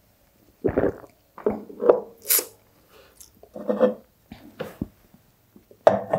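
A man's wordless throat and breath sounds just after a mouthful of ginger soda: several short voiced grunts or hums, with a sharp hissing exhale about two seconds in.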